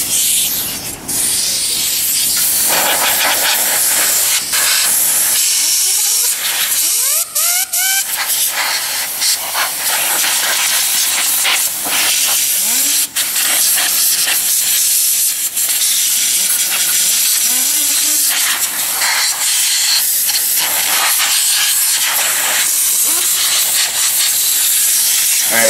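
Compressed-air hose blowing dust out of an open desktop computer case: a loud, continuous hiss with a few brief breaks.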